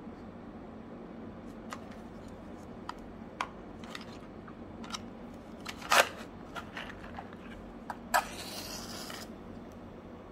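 Small clicks and taps of a matchbox being handled, then a matchstick struck on the box, flaring with a short hiss about eight seconds in.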